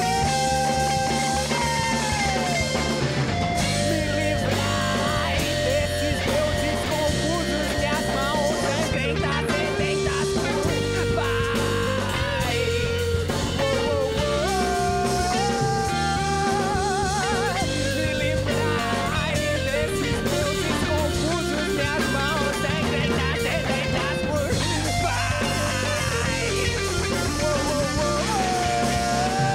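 Live rock band playing: electric guitar, bass guitar and drum kit under a sung melody of long held notes with vibrato.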